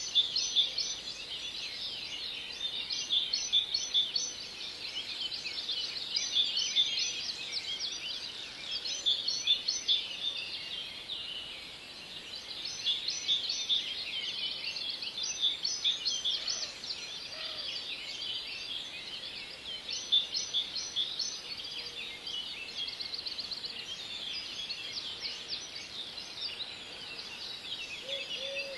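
Many small birds chirping and singing at once: a dense, unbroken chorus of high chirps and trills that swells and eases every few seconds.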